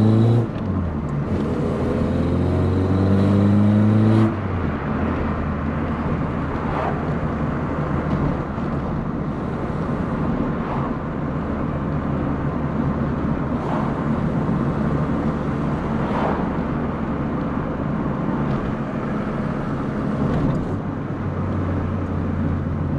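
Carburetted VW Polo engine accelerating on the road, its note rising in pitch and then breaking off suddenly about four seconds in. After that the car cruises with a steadier engine hum under road and tyre noise.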